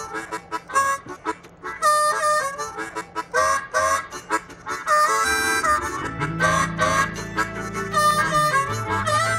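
Harmonica played in short, repeated chords, cupped against a microphone; a low bass line joins about six seconds in.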